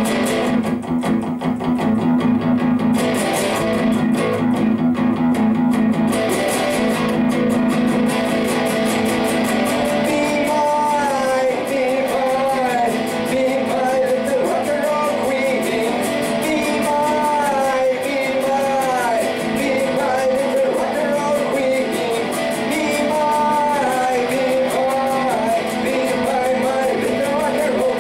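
Electric guitar played in a heavy-rock style, alone at first; about ten seconds in a man's singing voice comes in and carries on over the guitar.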